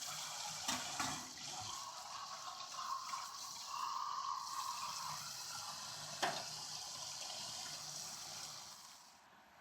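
Water running from a tap as a clogged dishwasher filter is rinsed clean, with a few light knocks. The water stops near the end.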